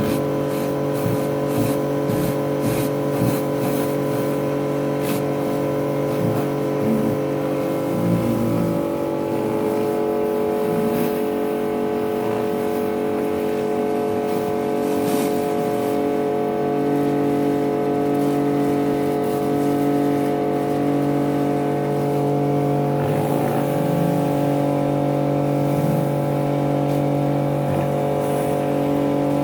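Karcher K4 electric pressure washer running: a steady motor-and-pump hum with a hiss over it, shifting a little in level now and then.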